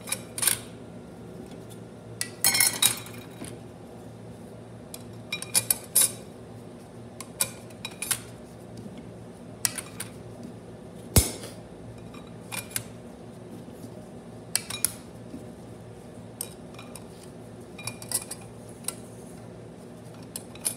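Steel and friction clutch plates of a Turbo 400 (TH400) transmission clinking against each other and the clutch drum as they are set in one by one during clutch pack assembly: scattered light metallic clinks in small clusters every second or two, with one sharper knock about eleven seconds in.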